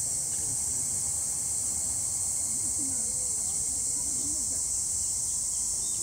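Insects chirring in a steady, unbroken high-pitched chorus.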